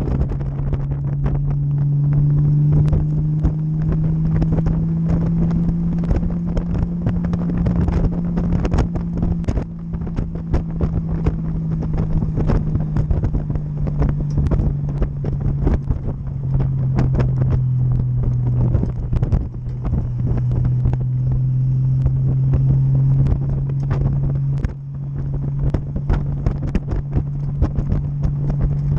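Motorcycle engine running steadily at cruising speed, its low drone shifting slightly in pitch and dipping briefly a few times, with wind buffeting the microphone throughout.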